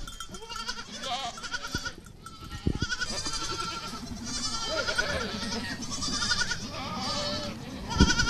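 Several young goat kids bleating, many short quavering calls overlapping, as hungry kids crowd round to be bottle-fed. A few sharp knocks sound among them.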